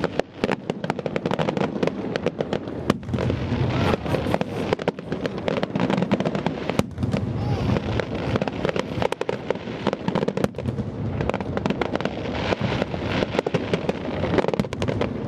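Fireworks display: a dense, unbroken run of bangs and crackles, one burst after another.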